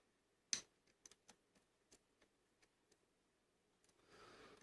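Faint small clicks of metal lock-picking tools being handled while the pick is swapped, with one sharper click about half a second in and a brief soft rustle near the end.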